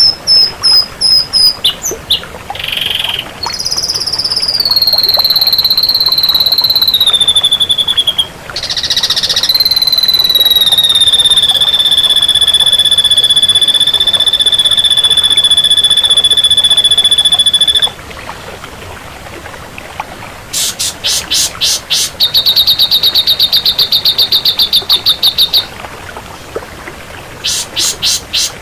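Ashy drongo singing: a run of short sharp notes, then falling whistles and a long clear whistle held for about eight seconds, then fast rattling trills in the second half.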